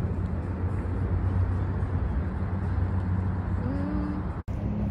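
Steady low rumble of outdoor background noise, with a short rising tone about three and a half seconds in.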